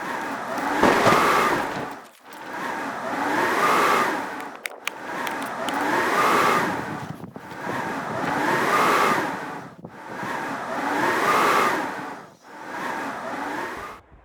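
Storm wind howling in gusts, rising and falling in pitch in regular swells about every two and a half seconds, then cutting off abruptly near the end.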